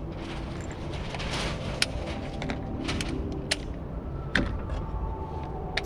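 Scattered sharp clicks and knocks at irregular intervals over a steady low background rumble.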